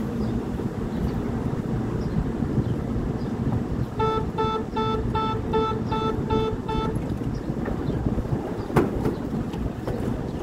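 NJ Transit bilevel coach's door-closing warning: about eight quick, evenly spaced beeps over three seconds, then a door shutting with a sharp thud. Under it runs the standing train's steady low rumble.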